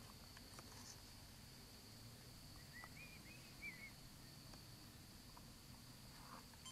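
Near silence: faint outdoor ambience with a steady high-pitched hum, and a brief faint chirping call about three seconds in.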